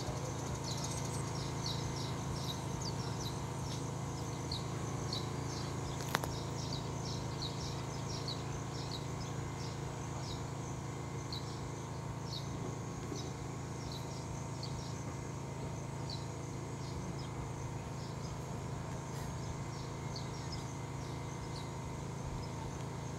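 Farm field ambience: many short high chirps repeating irregularly over a steady low hum, with one sharp click about six seconds in.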